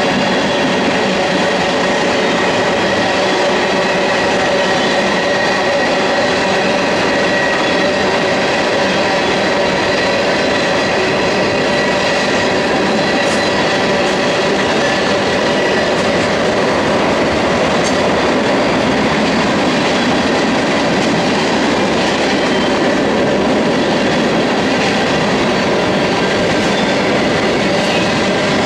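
Freight cars of a mixed freight train rolling past at steady speed, their steel wheels running on the rails with a continuous loud noise and steady high tones held over it, like a faint wheel squeal.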